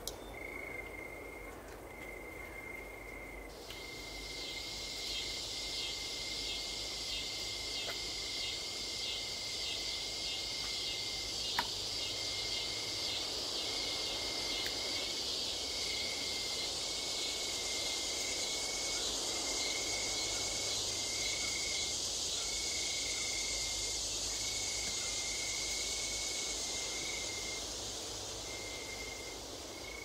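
Insects singing: a steady high-pitched trill broken into short bursts throughout, joined about three and a half seconds in by a louder, higher, rapidly pulsing buzz that fades away near the end. A single sharp click sounds near the middle.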